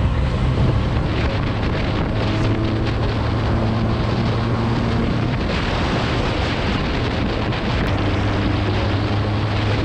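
Benelli 302S parallel-twin motorcycle engine running at a steady cruise, heard under heavy wind rush on the microphone. The engine note holds fairly level, with small shifts in pitch after a few seconds.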